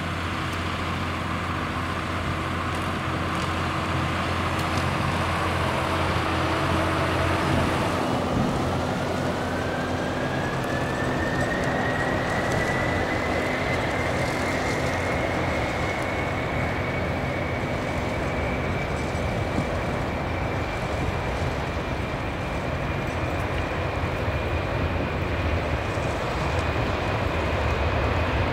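Jet airliner engines running steadily, with a whine that begins to climb in pitch about eight seconds in and then holds high.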